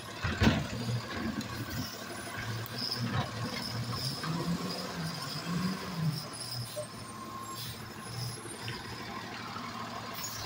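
Automated side-loader recycling truck at the curb, its engine running steadily, with a loud bang about half a second in. The engine note rises and falls around the middle as the side arm handles a roll cart.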